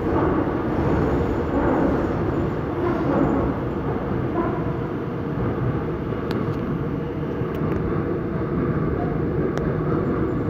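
Seoul Subway Line 5 train running through a tunnel, heard from inside the car: a steady rumble of wheels on rail, with a few faint high ticks in the second half.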